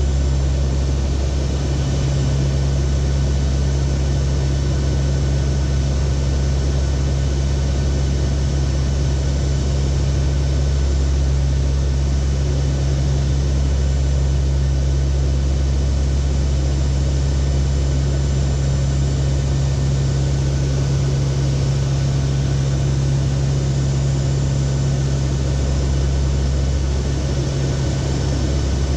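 Cockpit of a Lockheed WP-3D Orion four-engine turboprop in flight: the steady, loud drone of the engines and propellers, with a low hum and many fine steady tones over a rushing air noise.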